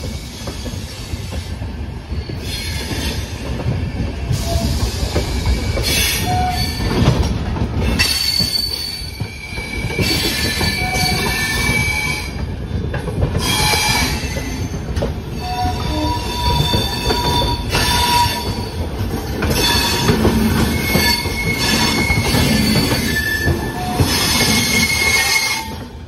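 Express passenger train rolling slowly through a station yard, heard from an open coach door: a steady rumble and clatter of the wheels. Over it, the wheels squeal in short high tones at several pitches that come and go.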